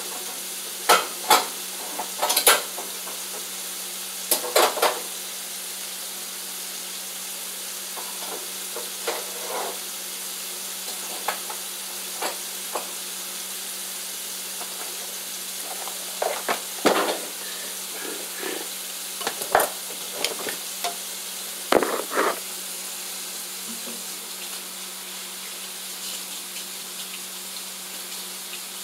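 Food sizzling steadily in a frying pan while a large spoon stirs it, with sharp clatters and scrapes of the spoon against the pan now and then.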